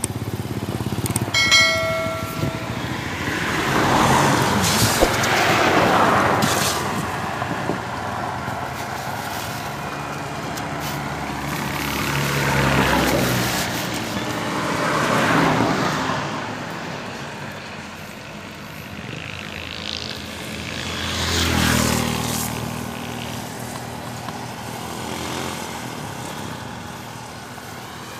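Road traffic: several vehicles pass one after another, each swelling up and fading away over a few seconds, with a short beep about two seconds in.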